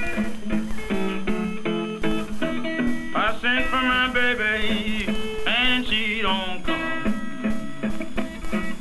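Acoustic blues guitar playing the intro of a country blues song: picked notes, with notes that bend and waver about a third of the way in and again past the middle.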